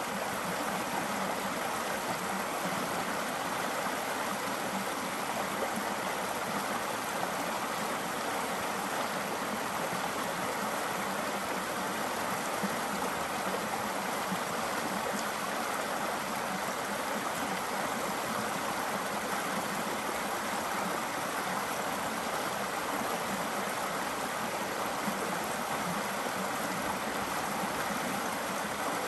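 Shallow rocky brook running over small rapids: a steady, unbroken rush of water.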